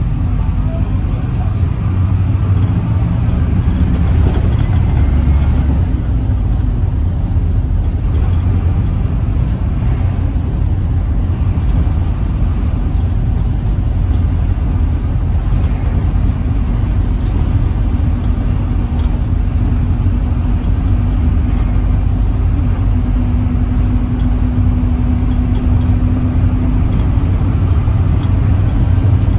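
Mercedes-Benz O814 minibus's diesel engine running under way with road rumble, heard from inside the Plaxton Beaver 2 saloon. The steady low drone carries an engine hum that grows stronger past the middle and drops back near the end.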